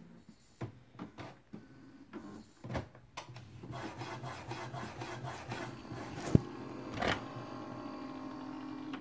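Epson WorkForce WF-2860 inkjet printer powering up and running its start-up cycle: a few scattered clicks, then its motors and print-head carriage running with a steady mechanical hum, broken by a sharp click a little past halfway.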